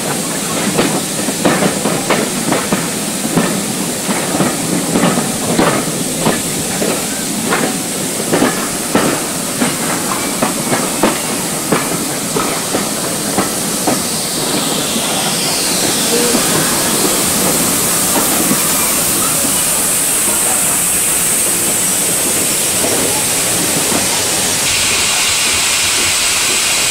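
Steam train: a run of irregular clanks and knocks for about the first half, then a steady hiss of escaping steam that takes over for the rest.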